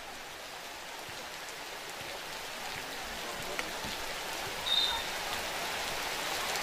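Heavy rain pouring down, a steady hiss that slowly grows louder, with a brief high squeak about three-quarters of the way through.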